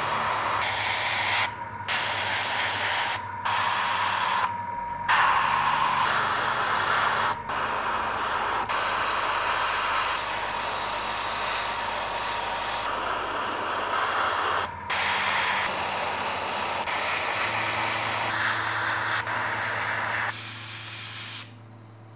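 Airbrush spraying paint: a steady hiss of air and paint, cut off briefly about five times as the trigger is let go, with a faint thin tone under it. It stops shortly before the end.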